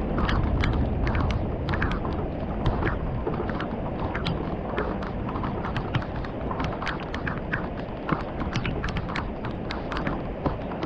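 Thunderstorm rain: drops tapping irregularly on a hard surface close by, several a second, over a steady low roar of rain and wind.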